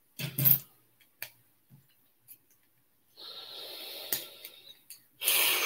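A man breathing near the microphone: a short hum about half a second in, a soft exhale through the nose in the middle, and a louder breath or sniff near the end. A couple of faint clicks of small LEGO bricks being handled are also heard.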